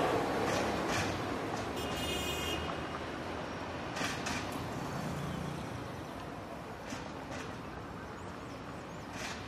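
City street traffic: the steady noise of passing vehicles, loudest at the start as one goes by and fades. A brief high-pitched tone comes about two seconds in, and there are a few light knocks.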